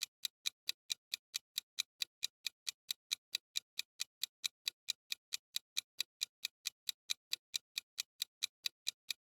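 Quiz countdown timer sound effect: an even, clock-like ticking, about four and a half ticks a second.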